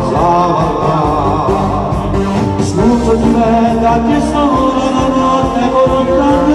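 Live duet song in the Neapolitan neomelodic style: sung vocals with a wavering vibrato over loud instrumental backing with a steady bass.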